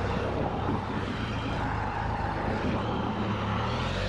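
Can-Am Spyder RT three-wheeler's engine running steadily, a low hum under a broad hiss of wind and road noise.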